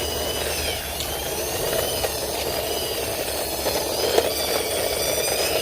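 Plastic toy helicopter being run by hand, a steady whirring, rushing noise with faint high gliding tones over it.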